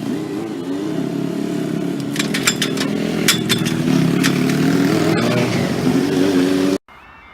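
Train passing over a level crossing: a steady pitched running sound, with a run of sharp wheel clacks over rail joints in the middle. Near the end it cuts off suddenly, and a faint repeating crossing alarm begins.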